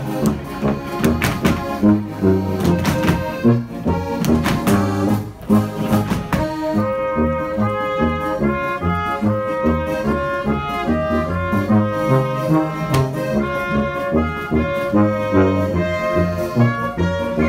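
Brass-band folk dance music with accordion over a steady bass beat. For the first six seconds or so, sharp hand slaps from the dancers sound on top of it.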